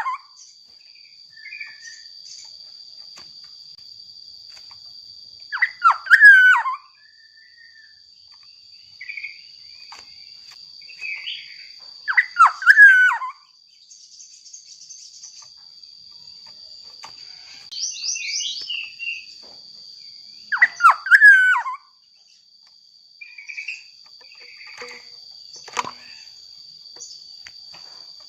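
Black-naped oriole in full song: loud, fluty whistled phrases of about a second each, three of them several seconds apart. Softer chirps from other birds come in between, and a steady high insect drone runs underneath.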